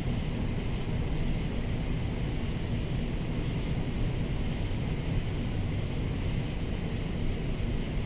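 Cicadas singing in a steady, unbroken chorus, over a louder steady low rumble.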